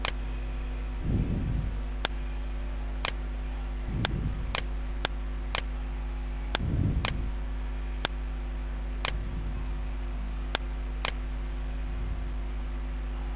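Computer mouse button clicking: a dozen or so sharp clicks at irregular intervals, with a few brief low rumbles, over a steady low hum.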